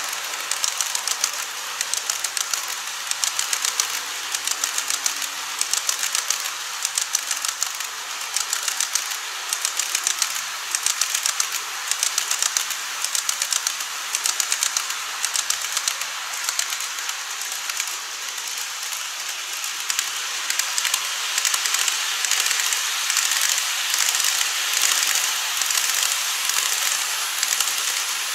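Model trains rolling along plastic elevated track: a rapid, steady clicking of the wheels over the rail joints over a light rolling hiss, as the 14-series coach models pass. In the last several seconds the running gets a little louder as a 787-series model train comes by.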